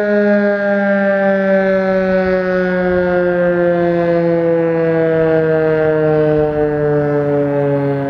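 Federal Signal 2001-130 outdoor warning siren winding down at the end of a three-minute steady alert: one loud tone sliding slowly and steadily lower in pitch as the rotor coasts to a stop.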